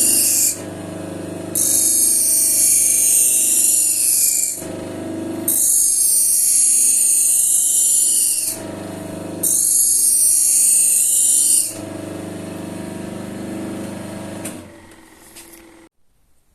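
Slotted paper honing wheel charged with Autosol, running on its motor with a steady hum, while a knife blade is drawn across it in passes. Each pass is a few seconds of loud hiss: one ends just after the start and three more follow with about a second between them. After the last pass the motor is switched off and winds down, stopping about a second before the end.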